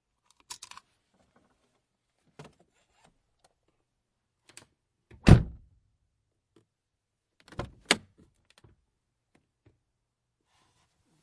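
Someone getting into a car: a few light clicks of the door handle and latch, then the car door shut with one heavy thump about five seconds in, followed by two sharp clacks a moment apart.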